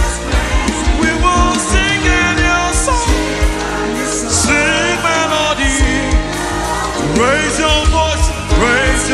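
Live gospel praise music: a solo singer's gliding, melismatic vocal runs over a band with steady drum beats and bass.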